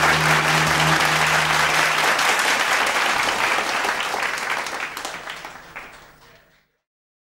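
Audience applauding at the end of a live band song, with the band's last low note held under it for about the first two seconds. The applause fades away to silence about six and a half seconds in.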